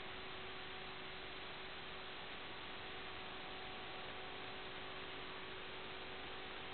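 Steady static hiss with a faint, unchanging hum tone underneath and no motor or other sound, typical of the empty audio channel of an analog FPV video link.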